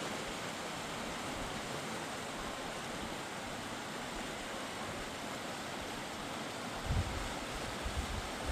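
Mountain river rushing steadily. A few brief low thumps come about 7 and 8 seconds in.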